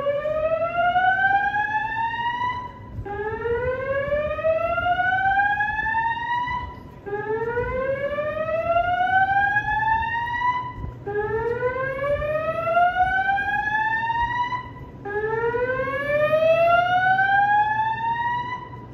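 Building fire alarm sounding its evacuation signal for a fire drill. It is a slow whoop: a tone that rises steadily in pitch over about three and a half seconds, then starts again low, about five times in a row.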